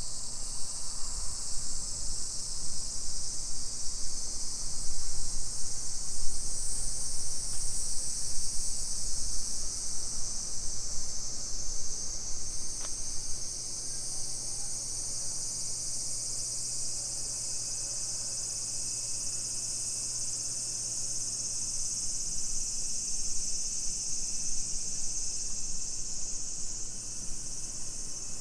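Steady, high-pitched insect buzzing, over a low hum and rumble that eases about halfway through.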